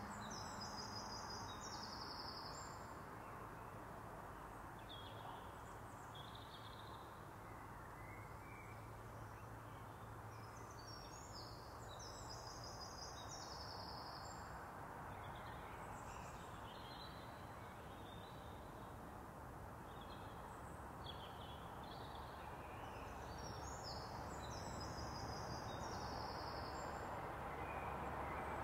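Steady low rumble of overhead road traffic, with a songbird singing a short phrase of quick high notes three times, about twelve seconds apart, and brief high calls in between. A low ringing tone dies away in the first second or so.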